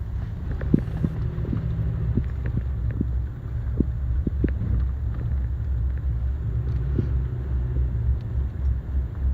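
Car driving along a road, heard from inside the cabin: a steady low rumble of engine and tyres with scattered light knocks and rattles.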